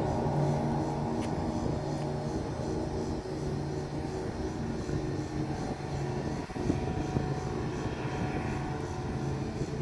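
A steady low engine drone that swells and fades slightly every second or so, over a continuous background hiss.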